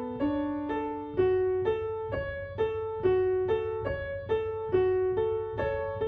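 Piano music: a calm solo piano piece with a steady stream of notes struck about twice a second, each ringing and fading before the next.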